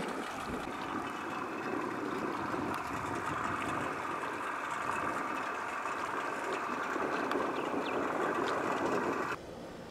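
A steady motor drone that cuts off suddenly near the end.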